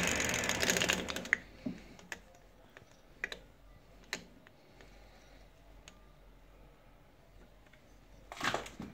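Small lathe boring a meerschaum pipe block, running loudly and then stopping just over a second in. After that come scattered light clicks and taps, and a brief rasping sound near the end.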